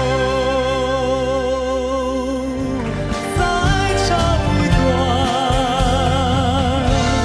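Song performance: a singer holding long notes with a wide vibrato over steady accompaniment, moving to a higher held note about three seconds in.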